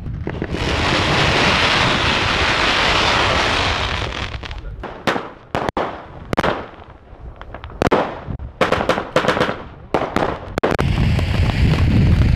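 New Year's Eve fireworks: about four seconds of dense crackling hiss, then a run of sharp separate bangs and pops from aerial shells. Near the end comes a steady rushing roar, the sound of a ground fountain spraying sparks.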